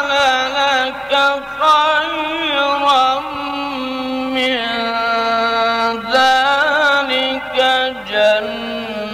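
A man's voice reciting the Quran in the melodic, drawn-out mujawwad style. He sings long ornamented vowel runs with a wavering pitch, holding one steady note for a few seconds in the middle.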